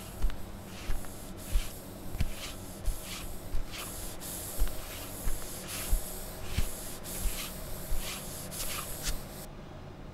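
Rhythmic rubbing swishes, about three every two seconds, each with a soft low thump: a sound effect of inner thighs chafing against each other. The strokes stop shortly before the end.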